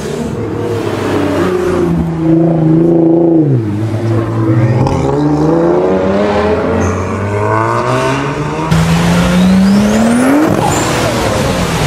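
Sports car engines accelerating hard one after another, each climbing in pitch and dropping back at a gear change. Near the end a Nissan Skyline R34 GT-R's twin-turbo straight-six revs up in one long rising pitch, then falls away.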